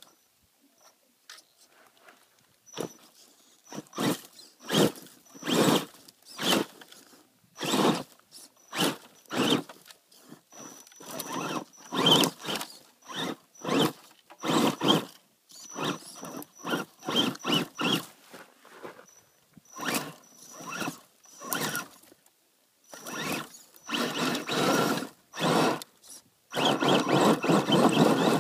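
Axial Wraith RC rock crawler's electric motor and geared drivetrain whining in short throttle bursts, about one a second, as it crawls over rock. Near the end the bursts run together into longer stretches of continuous driving.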